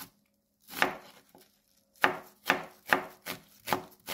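Kitchen knife slicing an onion into thin strips on a wooden cutting board, a sharp knock with each stroke. A couple of spaced strokes at first, then a steady run of about two strokes a second from about two seconds in.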